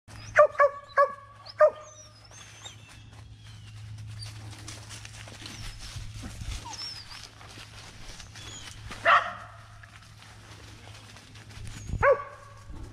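Squirrel dog barking: four quick barks in the first two seconds, then single barks about nine seconds in and near the end, the bark of a dog working a tree for a squirrel.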